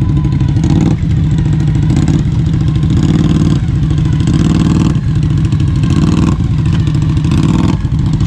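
Engine of a four-wheel-drive vehicle running steadily under load as it drives through mud.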